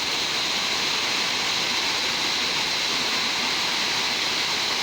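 Steady rush of a rain-swollen waterfall pouring over rocks and boulders, an even unbroken hiss.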